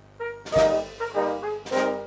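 Small brass band of cornets, alto horn, tenor horns and bass tuba with percussion, playing. After a brief hush at the start, soft held notes come in, and a percussion stroke about half a second in sets off a moving tune, with a second stroke near the end.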